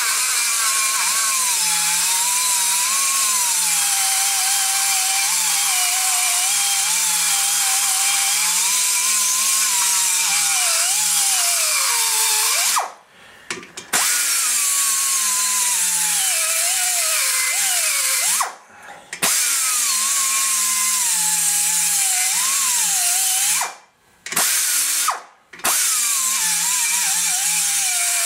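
A hand-held die grinder cuts out a valve seat in a cast-iron cylinder head. Its whine wavers and sags in pitch as the cutter bites into the metal, and it stops briefly and restarts four times.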